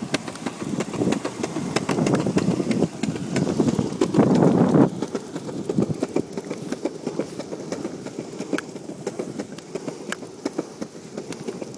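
Longboard wheels rolling on a concrete path: a steady rumble that grows louder about four seconds in, with many sharp clicks along the way.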